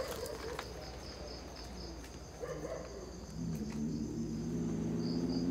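Crickets and other night insects chirping steadily; a low steady hum joins about three seconds in.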